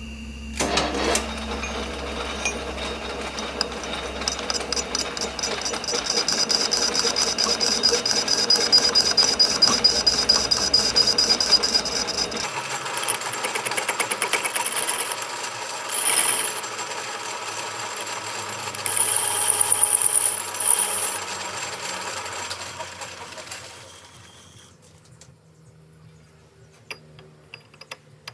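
Metalworking machinery running, with a steady high whine and fast, even mechanical chatter that stops about twelve seconds in. Short bursts of high hiss follow before the noise dies away.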